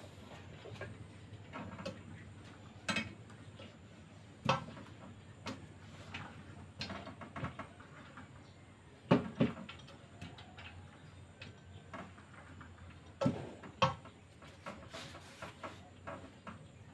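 Home gym machine, rigged with a rope over its pulleys and a homemade weight, clanking and clicking as its press arms are worked through repetitions: scattered metal knocks at uneven spacing, the loudest about nine seconds in and again around thirteen seconds.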